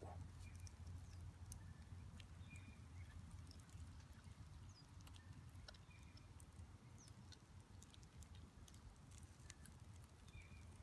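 Near silence: faint outdoor ambience with a steady low hum, scattered faint ticks and a few brief high chirps.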